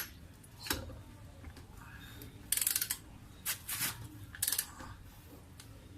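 Ratchet of a 1/2-inch click-type torque wrench working a car's lug nuts: a short rapid run of ratchet clicks about two and a half seconds in, then three shorter clicking bursts over the next two seconds.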